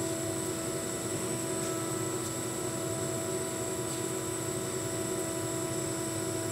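Steady electric-motor hum of a COMAC three-roll profile-bending machine's hydraulic unit and roll drive running, the rolls turning slowly to back the square tubing up to its programmed retract position. The drone holds an even pitch and level throughout.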